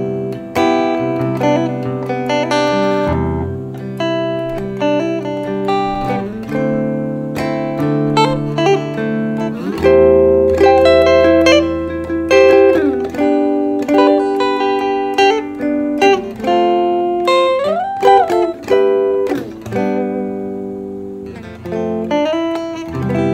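Electric guitar played through the guitar input of a Fender Riff portable Bluetooth speaker: a continuous run of chords and single notes, with a note bent up and back down about three quarters of the way through.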